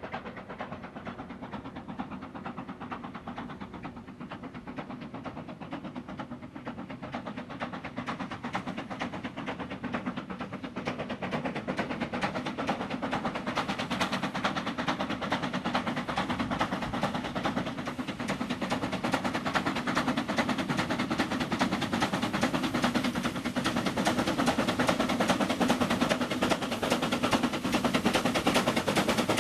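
A 762 mm narrow-gauge C2 class 0-8-0 steam locomotive working toward the listener with a coal train: rapid sharp exhaust beats and mechanical clatter over steam hiss, growing steadily louder as it approaches.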